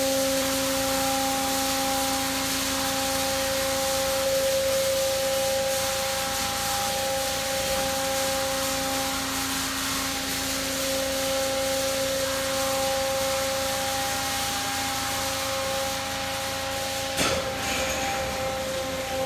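Autec Evolution soft-cloth car wash running: spinning cloth brushes swishing and rubbing over the car amid spraying water, over a steady motor hum. A single knock near the end.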